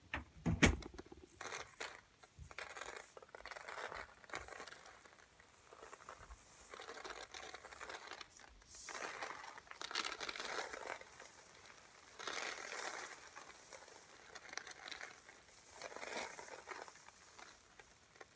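Improvised rain sound effect: a soft crackling patter that swells and fades in several waves, with a sharp knock about half a second in.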